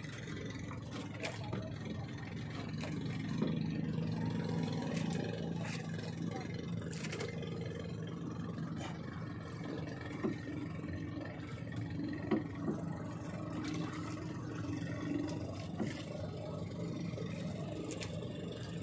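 Small boat engine running steadily in a low hum, with a few light knocks and clicks.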